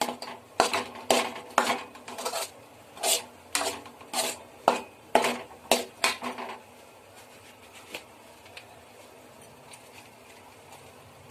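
A long slotted metal spoon scraping and knocking against a non-stick kadai while stirring coconut and condensed milk. It is a quick series of sharp scrapes and taps for the first six seconds or so, then only faint occasional ticks.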